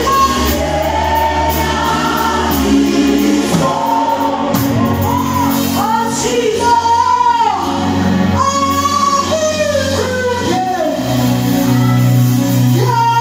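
Gospel choir singing live, voices holding long, gliding notes over sustained low backing notes.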